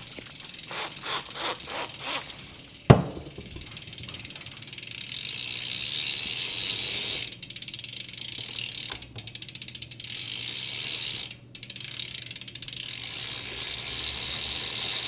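Bicycle drivetrain being turned on a work stand: the rear hub's freewheel ratchet clicking and then buzzing steadily as the wheel coasts, cutting out briefly three times. A sharp knock about three seconds in is the loudest single sound.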